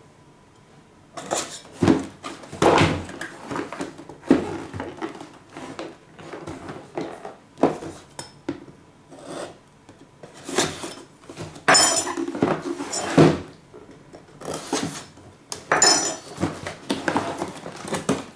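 A small kitchen knife slits the tape and cardboard of a product box, which is turned over and set against a wooden tabletop: irregular scraping and knocks starting about a second in.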